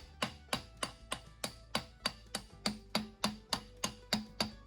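Hammer striking a steel bearing-race setter, driving a wheel bearing race into a brake-drum hub. Steady blows about three a second, each with a short metallic ring.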